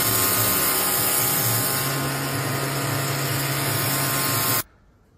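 Pressure washer running, its lance jetting water onto stone patio slabs: a loud steady hiss over a low motor hum, cutting off abruptly about four and a half seconds in.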